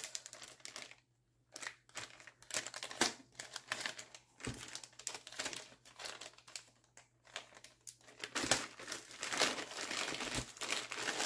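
Clear plastic zip-top bags crinkling and rustling as they are handled, in irregular bursts, with a short pause about a second in and busier rustling near the end.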